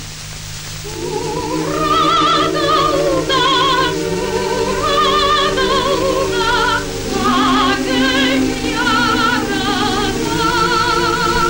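A high voice singing a slow, lyrical song with strong vibrato over orchestral accompaniment, from an old film soundtrack. The accompaniment swells in about a second in and the voice enters about a second later, holding long notes.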